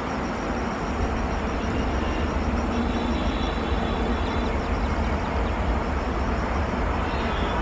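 WAP-7 electric locomotive hauling a passenger train on approach: a steady rumble that grows gradually louder, with a faint high whine for a couple of seconds midway.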